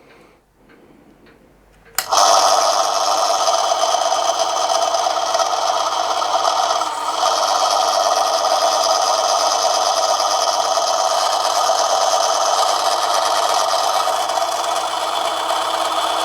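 Manson lathe started up about two seconds in, its motor and drive then running steadily with a whine of several tones over a low hum.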